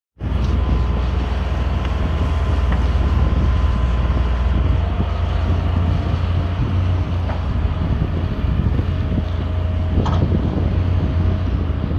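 Hitachi ZX210LC crawler excavator's diesel engine running steadily while the machine works its hydraulic arm out into the mud, with wind rumbling on the microphone. Two short knocks in the second half.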